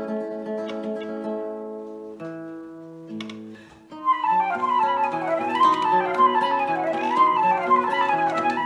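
Nylon-string classical guitar chords ringing and fading, then a few low plucked notes; about four seconds in a concert flute enters with quick runs rising and falling over the guitar's accompaniment.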